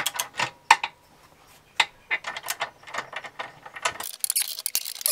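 Socket ratchet clicking in short runs as it cranks the screw of a scissor-type motorcycle lift, winding the bike down. About four seconds in, a hissing, crackly noise takes over.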